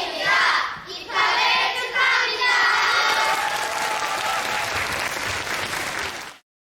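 Children's voices calling out, then an audience applauding; all sound cuts off abruptly near the end.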